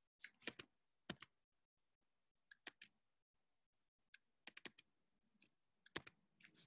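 Computer keyboard keystrokes clicking in small scattered groups of two to four, with dead silence between them.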